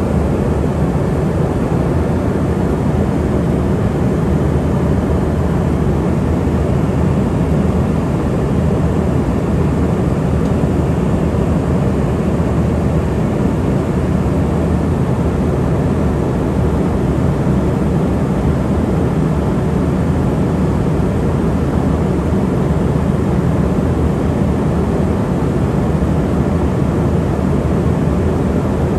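Steady in-flight noise inside an Embraer ERJ145 regional jet in cruise: the rush of airflow over the fuselage mixed with the drone of its Rolls-Royce turbofans, heaviest in the low end and unchanging.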